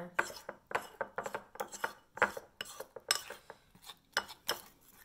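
A fork beating pancake batter in a ceramic bowl, clinking against the bowl in a quick, uneven rhythm of about four clicks a second.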